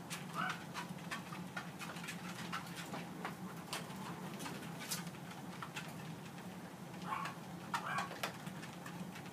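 Home treadmill running with a steady low hum while Yorkshire terriers walk on its belt, with scattered light taps. A few short, soft dog whines come about half a second in and again around seven to eight seconds in.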